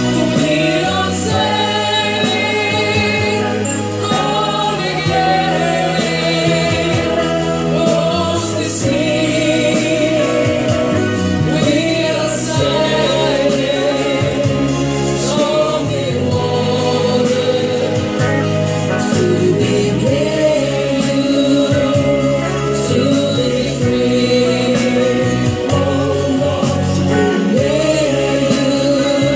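Music with voices singing together, like a choir, over a sustained chordal backing.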